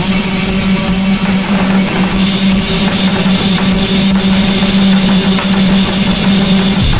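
Harsh noise music: a loud, dense wall of distorted noise over a steady low drone that cuts out briefly a few times, the texture changing near the end.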